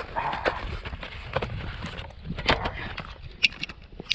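Footsteps and rustling while walking with an aluminium beer can, then a few sharp clicks near the end as a finger works the can's pull tab.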